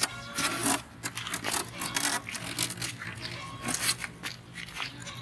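Irregular rustling and scraping of leafy plants being handled, a quick run of short crisp bursts of differing loudness.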